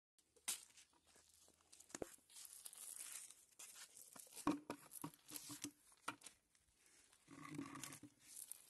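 Wet cast net rustling and crackling as hands work through the mesh on a concrete path to free caught fish, with scattered sharp clicks and light taps.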